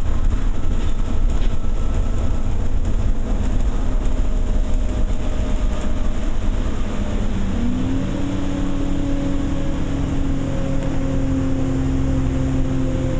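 Diesel bus engine and road noise heard from inside the bus while it drives. About two thirds of the way through, the engine note rises and then holds steady.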